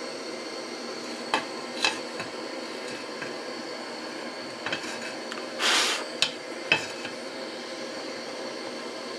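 An aluminium pan and the metal parts of a portable gas stove clinking and knocking together about half a dozen times over a steady hiss. A short rushing burst comes a little past the middle.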